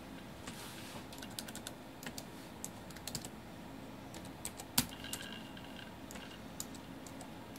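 Typing on a Dell Latitude C610 laptop keyboard: irregular light key clicks, with one louder key press a little under five seconds in.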